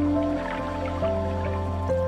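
Intro music: sustained synth notes that step to new pitches every second or so over a steady low bass, with dripping-water sound effects mixed in.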